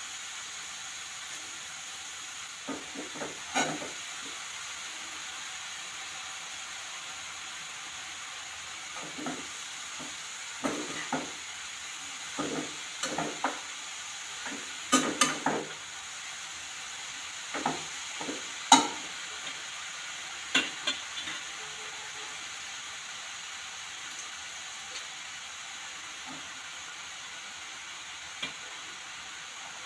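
Grated carrots frying in ghee in a non-stick pan, with a steady sizzle. A steel spatula stirring them makes irregular scrapes and knocks against the pan, clustered through the middle.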